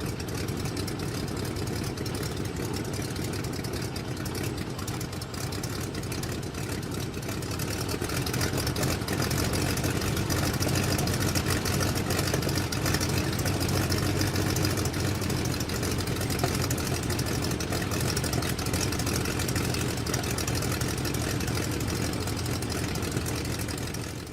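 Stearman biplane's radial engine idling, heard from the cockpit: a steady engine sound that grows somewhat louder about eight seconds in.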